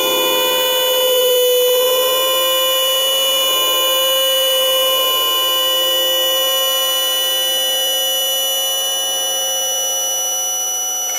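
A sustained electronic drone of several steady tones sounding together, like a buzzer or test tones; the lowest tone wavers slightly now and then.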